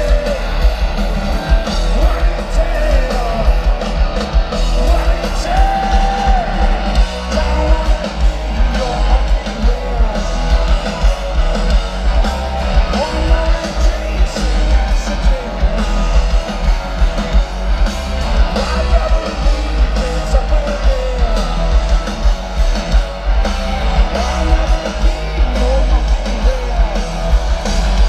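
Live rock band heard from within a festival crowd through a large PA: distorted electric guitars, drums and a heavy bass, with a sung male lead vocal over it.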